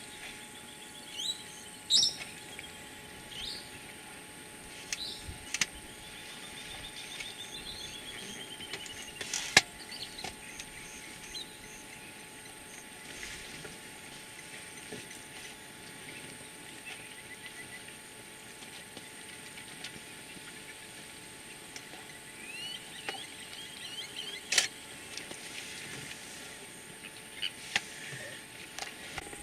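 Wild birds calling at a waterhole: scattered chirps and trills, including one long arching trill and another cluster of trills later, over a faint steady background hum, with a few sharp clicks.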